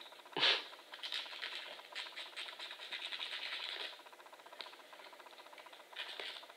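Nail file rasping in rapid strokes against a green-winged macaw's claws, loudest for about three seconds and then fainter, with a sharp click about half a second in.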